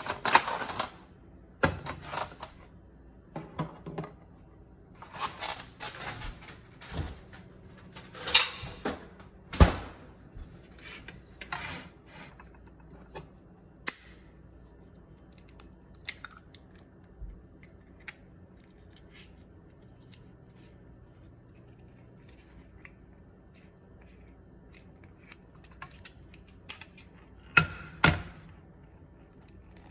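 Kitchen utensils, dishes and pans being handled: scattered knocks, clinks and scraping sounds, busiest in the first ten seconds and again near the end, with a quieter stretch in the middle.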